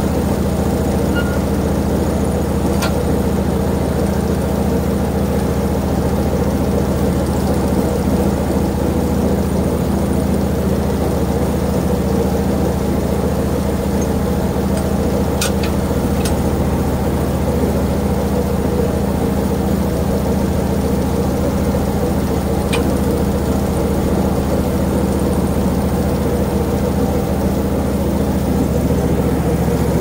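Portable band sawmill's engine idling steadily between cuts, with a few light knocks as boards on the bed are handled.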